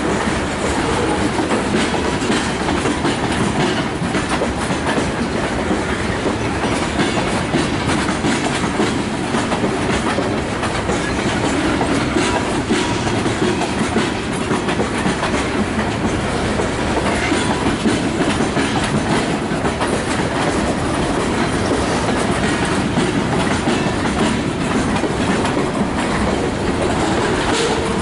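Freight train of tank cars and boxcars rolling past at steady speed: a continuous rumble with steel wheels clicking over the rail joints.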